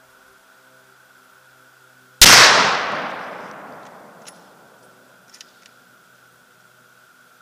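A single shot from a .416 Ruger bolt-action rifle about two seconds in, very loud, its report dying away over about two seconds. A few faint clicks follow.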